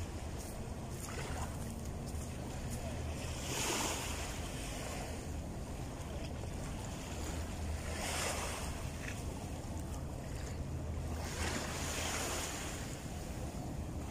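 Small waves washing up onto a sandy beach, three washes about four seconds apart, over a steady low drone.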